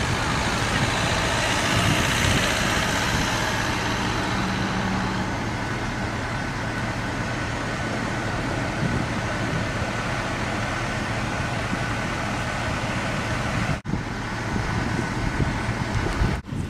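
Diesel engine of a coach bus running close by: a steady low hum under a wash of noise, broken off briefly twice near the end.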